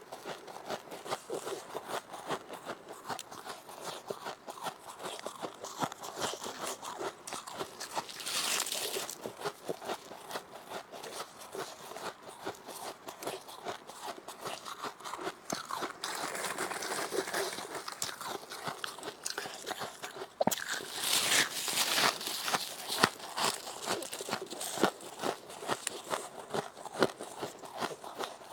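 Mouth-close crunching and chewing of soft, powdery freezer frost, with a dense crackle of crushed ice crystals and heavier crunches about a third of the way in and again about three quarters through.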